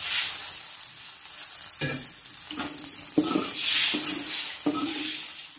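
Shrimp and garlic sizzling in hot oil and water in a wok, with a metal spatula scraping and stirring against the wok in several strokes from about two seconds in.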